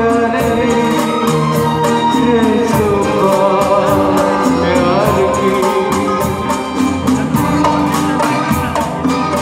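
Live band playing a Bollywood film song, with singing over sustained melodic instruments and a steady, quick percussion beat.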